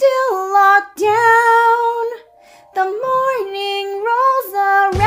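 A woman singing a melody almost unaccompanied, holding notes and stepping between pitches, with a brief pause a little past halfway through.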